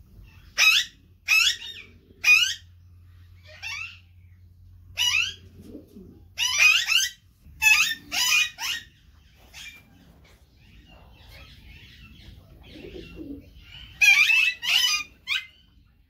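Parakeets giving short screeching calls, one after another in bursts. The calls come thickest in the first few seconds, again around seven to eight seconds in, and in a final burst near the end, with a quieter stretch between.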